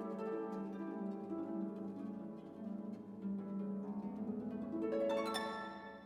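Background music: gentle plucked harp-like notes over sustained tones.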